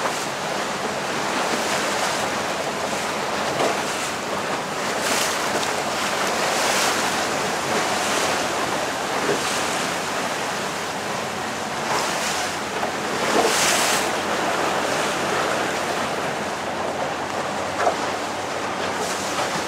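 Ocean swell washing and splashing against sea rocks around a small open boat, with wind on the microphone. The splashing surges up several times, loudest a little after the middle.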